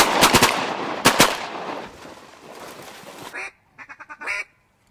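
A rapid volley of several shotguns firing together at ducks over a pond: a cluster of blasts at the start and another about a second in, the reports echoing and fading over the next second. Near the end come a few short duck quacks.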